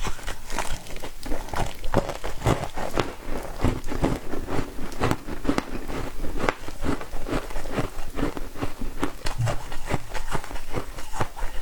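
Foam ice being bitten and chewed: a steady run of crisp crunches and crackles, several a second, as it is ground between the teeth.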